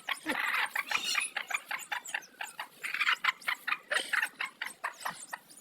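A brood of newly hatched native chicks cheeping: many short, high peeps, several a second, with a couple of stretches of rustling among them.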